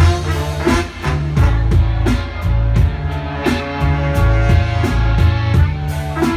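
A live band playing an instrumental passage: trumpet and trombone playing sustained lines together over electric guitar, bass and drum kit.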